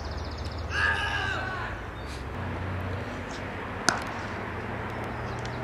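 Cricket bat striking a leather cricket ball: a single sharp crack just under four seconds in as the batsman plays a pull shot, over a steady low hum.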